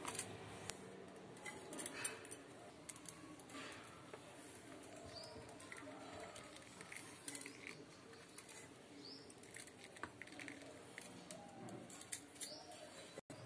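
Very quiet room tone with faint scattered ticks of sugar sprinkles dropping onto a plate and donut, and three faint short rising chirps, like a bird outside.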